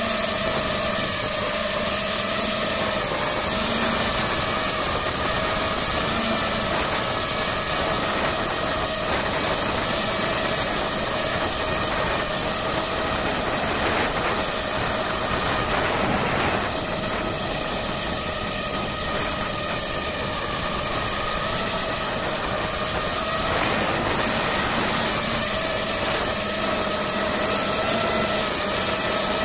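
DJI FPV racing drone's electric motors and propellers running in steady flight, heard from on board as a constant high whine over a steady hiss, its pitch wavering slightly.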